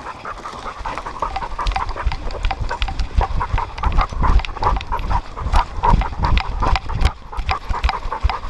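A dog panting hard as it runs, heard close up from a camera strapped to its back, with rapid, uneven breaths and low thumps from its running strides that grow stronger about two seconds in.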